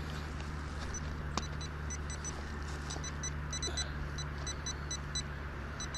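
Metal detector beeping in short, irregular runs of high-pitched electronic beeps, over a steady low hum and one sharp click about a second and a half in.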